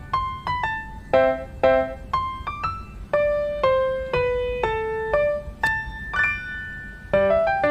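Background music: a light piano-style keyboard melody of single struck notes, about two a second, each dying away, with fuller chords near the end.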